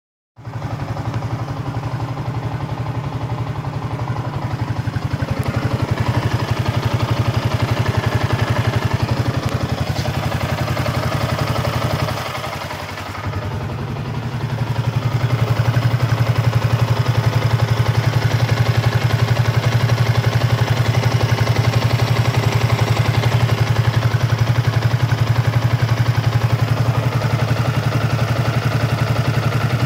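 Yamaha Y15ZR's 150 cc single-cylinder four-stroke engine, nearly new at about 450 km and on its stock exhaust, idling steadily. It gets louder from about halfway through, close to the exhaust header.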